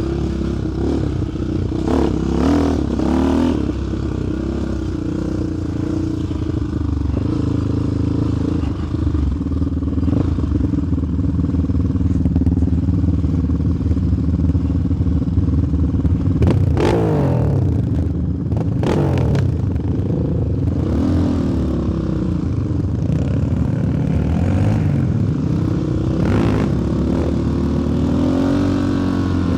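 Single-cylinder four-stroke sport quad engine running under way, its pitch rising and falling as the throttle is worked, with a couple of hard throttle bursts about halfway through.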